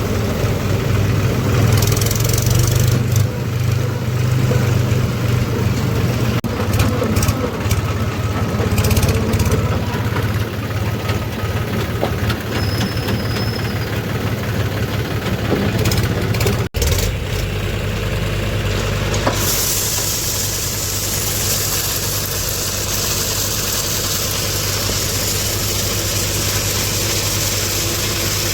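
JCB 3DX backhoe loader's diesel engine running steadily, with scattered knocks and clatter in the first half. The sound cuts out for an instant about two-thirds through, then carries on as a steadier engine drone.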